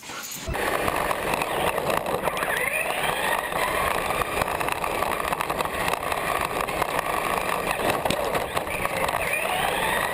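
Radio-controlled car driving over asphalt: a steady rough rolling and rattling noise that starts abruptly about half a second in, with the small electric motor's whine rising in pitch twice.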